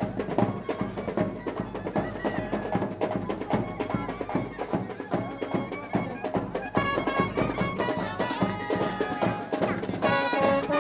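Traditional Indian wedding music played in the street: drums beating steadily under a reedy wind melody that stands out more clearly in the second half, with crowd voices mixed in.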